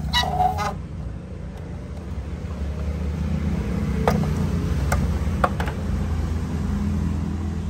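A steady low mechanical hum runs throughout, with a few sharp clicks about halfway through as plastic motorcycle body panels are handled.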